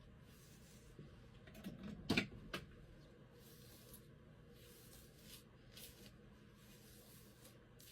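Quiet indoor room tone with a few soft clicks and knocks, the loudest two close together about two seconds in.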